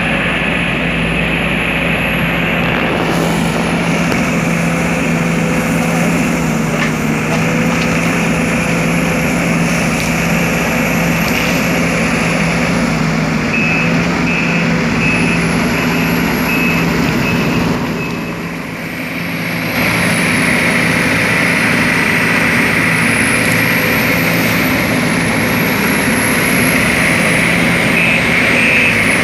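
Sumitomo SH210 hydraulic excavator running steadily, with a high whine that rises and falls over and over as it works. A string of short beeps sounds in the middle and again near the end, and the machine briefly goes quieter a little after halfway.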